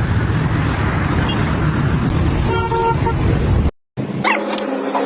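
A vehicle running with a loud, rough low rumble, with a short horn toot about two and a half seconds in; the sound then cuts off abruptly.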